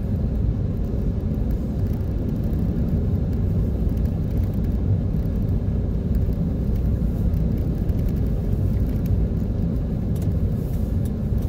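Steady low rumble of a car's engine and tyres heard from inside the cabin while driving slowly on a snow-packed road.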